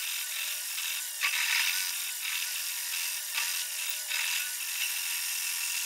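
Metal lathe roughing out a recess in the face of a model engine crankcase: the turning tool cutting metal with a scratchy, chattering hiss that swells and eases in irregular patches as the chips break off.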